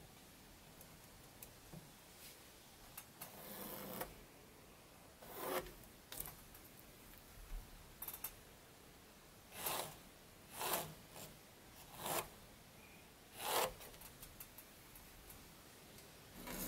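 Pencil drawing marking lines on wooden boards: a series of short scratchy strokes a second or two apart.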